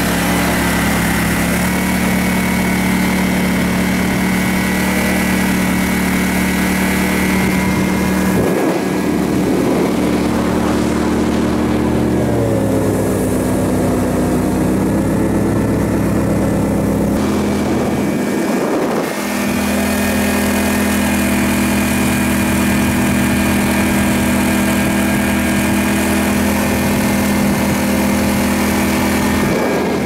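Swamp boat's engine running steadily at speed under way, a loud even drone whose pitch sags and recovers a few times midway before settling again.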